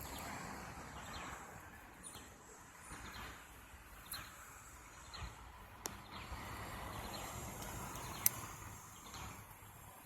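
Outdoor ambience: a bird repeating a short falling chirp about once a second over steady background noise. Two sharp clicks, the louder one about eight seconds in.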